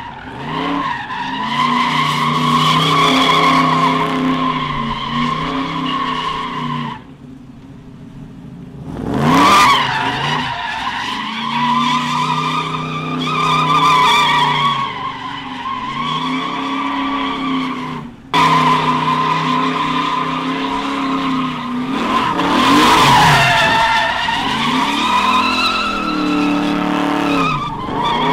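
Car engine held at high revs in a burnout, its note rising and falling with the throttle while the spinning tyres squeal. The revs fall away for a couple of seconds about seven seconds in, then climb again.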